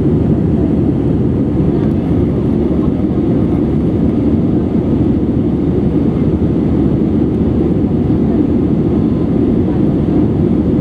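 Steady cabin noise inside a Cebu Pacific Airbus A320-200 in its climb: the low, even rush of the jet engines and airflow over the fuselage, heard from a window seat over the wing.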